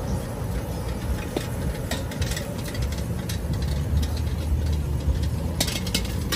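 Steady low roar of a portable propane wok burner running at full flame, with a few sharp metallic clicks of utensils and pans about two seconds in and again near the end.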